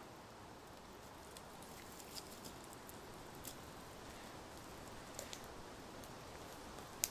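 Campfire burning quietly, with a faint steady hiss and scattered sharp crackles and pops from the burning wood, one louder pop near the end.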